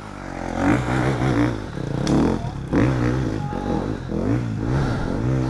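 GasGas dirt bike engine revving hard in repeated bursts as the rider works the throttle up a steep hill climb, its pitch rising and falling several times, with a sharp knock about two seconds in.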